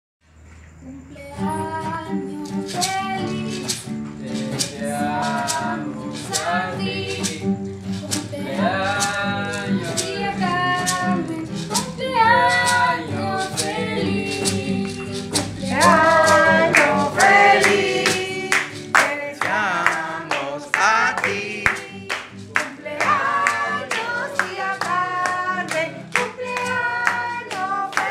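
A small group of voices, women and girls among them, singing a song together to an acoustic guitar, with sharp percussion strokes keeping a steady beat.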